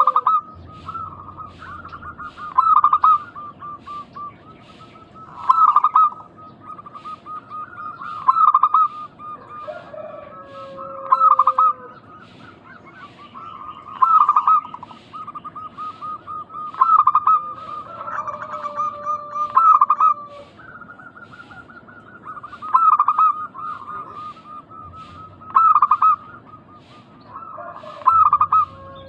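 Zebra doves (perkutut) cooing: runs of quick, soft cooing notes, each capped by a louder phrase, repeating about every three seconds.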